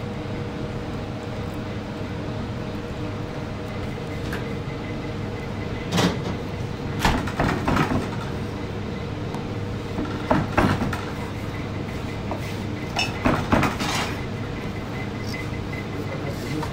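A long knife chopping down through a meat-filled flatbread sandwich onto a wooden cutting board. The cuts come as four groups of sharp knocks, a few seconds apart, over a steady background hum.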